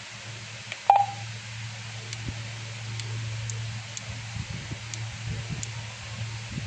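One short key beep from the QYT KT5000 mobile radio about a second in, as its menu buttons are pressed, over a steady low hum, with a few faint clicks.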